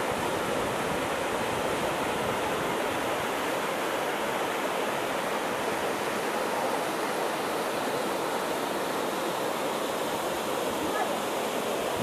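Orekhovsky waterfall's lower cascade pouring into its plunge pool: a steady, unbroken rush of falling water.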